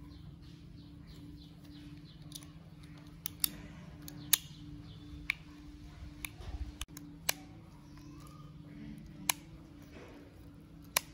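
Sharp plastic clicks from a white AirPods charging case being handled, its hinged magnetic lid snapping open and shut, about eight clicks spaced unevenly with a quick run of lighter ticks a little past the middle. A faint steady hum sits underneath.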